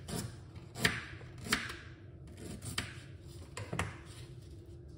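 Kitchen knife cutting fresh ginger root on a chopping board: a handful of sharp, irregularly spaced knocks, the loudest about one and one and a half seconds in.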